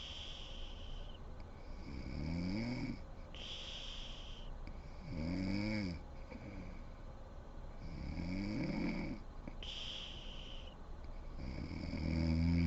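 A sleeping woman snoring: four low snores about every three seconds, most rising in pitch, with breathy hiss between them. The last snore, near the end, is the loudest.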